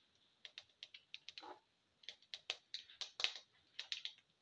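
Mustard and cumin seeds popping in hot oil in a pan: irregular sharp pops and crackles with short sizzles, thicker in the second half.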